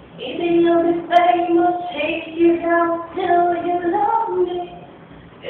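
A young man singing a pop melody unaccompanied in a high voice, in long held notes. The singing breaks off near the end.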